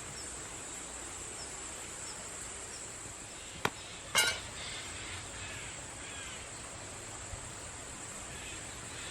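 Insects keep up a steady high-pitched drone with faint repeated chirps. A little past a third of the way in come two sharp clinks about half a second apart, the second louder and ringing briefly.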